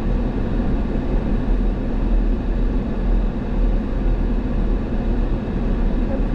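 Steady engine and tyre noise of a moving 4x4, heard inside its cabin, even and unchanging throughout.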